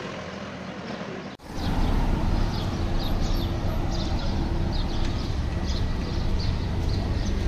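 Street ambience: a steady low rumble with a string of short, high chirps, roughly two or three a second. It starts after a brief dropout about one and a half seconds in.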